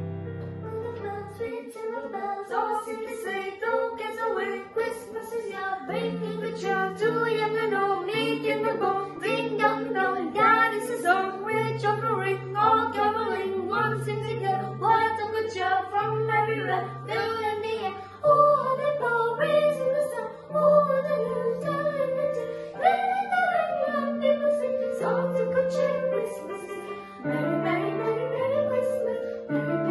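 Children singing a Christmas song together to an electronic keyboard, which plays held low notes that change about once a second beneath the voices.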